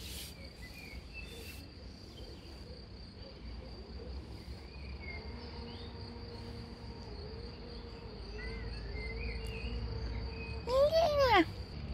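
Insects trilling steadily in one high, even tone, with scattered bird chirps. Near the end comes a loud squeal lasting under a second, its pitch sweeping up and down.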